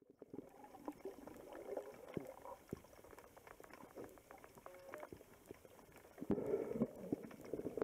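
Water heard underwater through a camera housing: muffled bubbling and gurgling with many small clicks and crackles, louder from about six seconds in.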